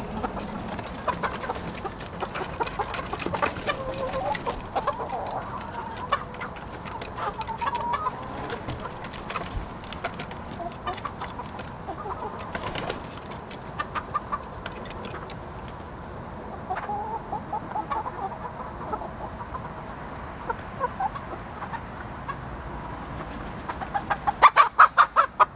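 A flock of chickens clucking, with short calls scattered throughout and a loud, quick burst of sound near the end.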